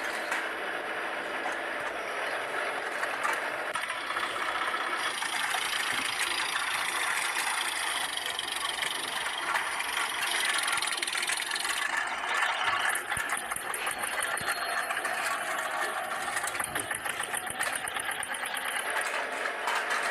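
Wheels of a metal toy tractor and its hitched trolley rattling and scraping as they are pushed along a rough concrete floor, a steady clattering that turns quicker and finer about two-thirds of the way through.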